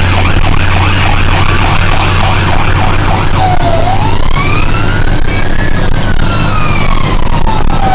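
Fire truck's siren heard from inside the cab. It runs on the fast yelp, about four sweeps a second, and about three and a half seconds in switches to the slow wail, which rises for about two seconds and falls for about two. The truck's engine is a steady low hum underneath.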